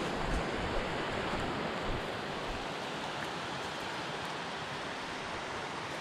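Steady rushing of a mountain creek running over rocks.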